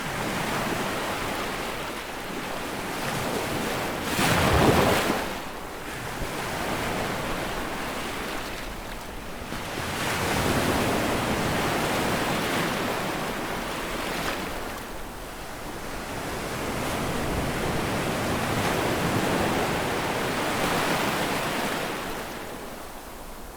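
Sea waves breaking and washing ashore in slow, uneven swells, the loudest crash about four seconds in.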